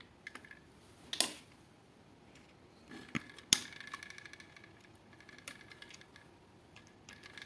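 Scattered small clicks and taps of hands working wires and tools at a wall socket's terminals, with the sharpest clicks about a second in and again at about three and a half seconds.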